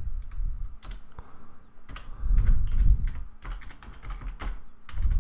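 Computer keyboard keys tapped one at a time at an uneven pace as a password is typed. A low rumble about two seconds in is louder than the keystrokes.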